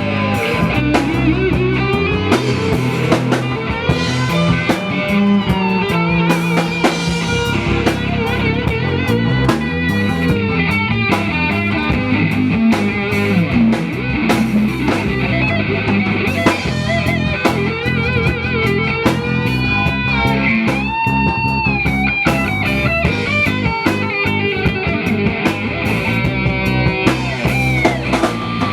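Live band playing an instrumental passage at a sound check: a guitar carrying a lead line with bent, wavering notes over a drum kit.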